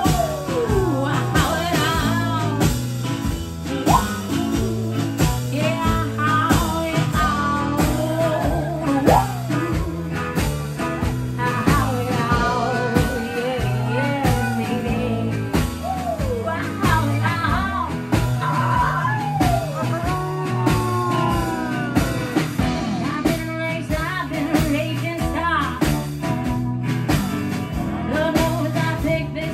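Live blues-rock band playing a song: acoustic guitar, drum kit and steel guitar over a steady beat, with many gliding, bending notes.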